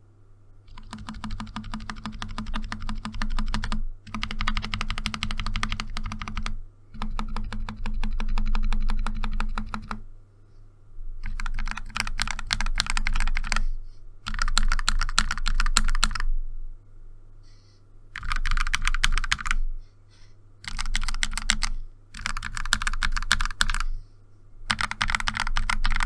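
Typing on a Kemove Snowfox 60% mechanical keyboard fitted with its stock keycaps and lubed Akko Rose Red linear switches. The case is filled with coins, tape and foam, and the PCB is tape-modded. The keystrokes come in fast runs of two to three seconds, separated by short pauses.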